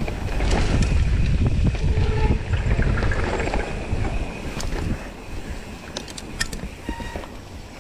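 Wind buffeting the microphone and tyres rolling over dirt as a mountain bike descends a trail; the rumble eases about five seconds in, and a few sharp clicks and rattles from the bike come near the end.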